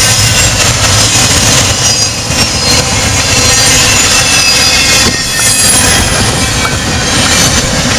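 Intermodal freight train of trailers on flatcars rolling past close by: a loud, steady rumble and rattle of the cars, with faint high-pitched squealing from the wheels on the rails.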